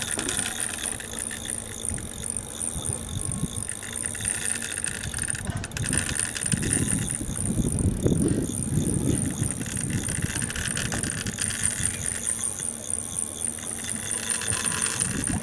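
Spinning reel's drag clicking in a fast, steady run as a hooked bluefin tuna pulls line against it, over a low rumble of wind and sea that is strongest midway.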